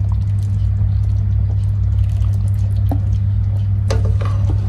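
A steady low hum, with a few faint light clicks, as sweetened condensed milk is poured in a thick stream into a pan of simmering milk and vermicelli.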